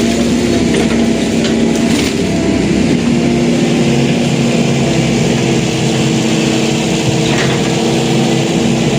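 Excavator's diesel engine running steadily, its pitch shifting slightly about three seconds in, with a few faint clicks.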